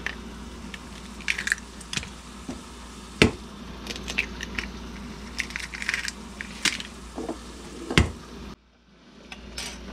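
Raw eggs being cracked one after another: four sharp knocks of shells struck on a hard edge, with smaller crackling and crunching as the shells are pulled apart and dropped onto a paper plate. A steady low hum runs underneath, and the sound cuts out briefly near the end.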